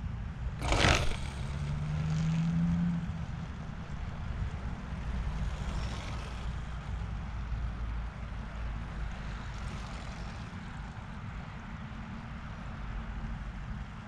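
A rubber-powered Guillows Bird Dog model plane being hand-launched: a brief rush of noise about a second in as it is thrown, then a faint hum for a couple of seconds as its wound-up propeller pulls it away. A steady low outdoor rumble underlies it all.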